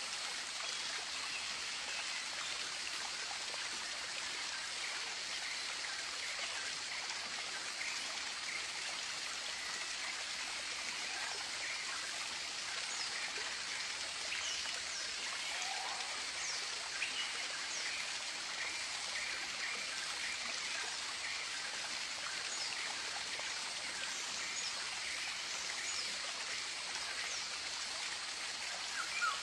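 Steady rushing of a stream with tropical birds calling faintly over it: a quick repeated trill and scattered high chirps.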